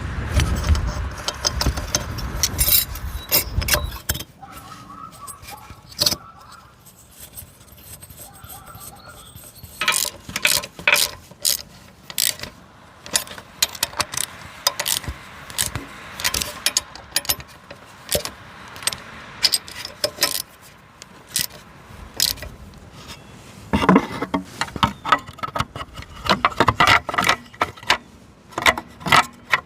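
Repeated metallic clinks, rattles and scrapes of tools and parts being handled, busiest near the end, after a low rumble that stops about four seconds in.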